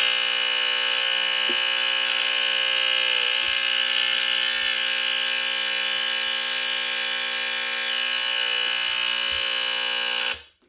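Gillette Captain Kelly 941 linecord smoke alarm sounding its alarm: one continuous, harsh buzzing tone, very loud and steady with no pauses, that cuts off suddenly near the end.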